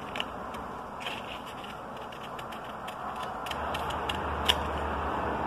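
Scissors snipping through folded paper: several short sharp snips, the loudest about four and a half seconds in, over a steady background hiss, with a low hum coming in partway through.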